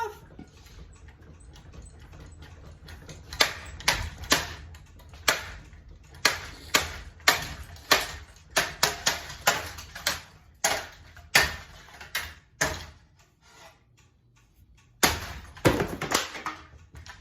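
A series of sharp, irregular knocks and clacks of hard objects striking, about twenty over ten seconds, then a quick cluster of knocks near the end. A low hum runs under the first few seconds.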